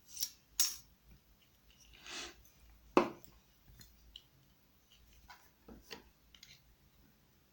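Scattered small clicks and taps of a disassembled pin-tumbler lock cylinder's metal parts being handled as a piece of soda-can shim is worked out of it, with one sharper click about three seconds in and a soft rustle just before.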